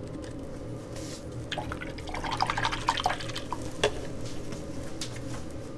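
Wet acrylic paint being worked with a brush, a run of small sticky clicks and taps from about a second and a half in to about four seconds, over a steady low hum.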